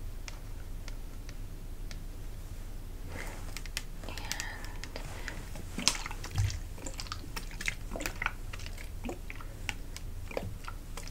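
Close-up handling of a plastic astringent bottle: fingernail taps and clicks on the plastic. They come sparsely at first and turn into a dense run of clicks about three seconds in, with one dull knock near the middle.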